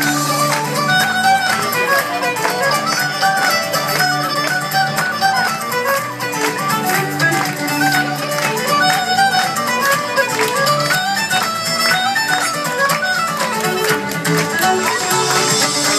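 Live fiddle tune played by a band: the fiddle carries a quick melody of running notes, over upright bass, acoustic guitar and drums.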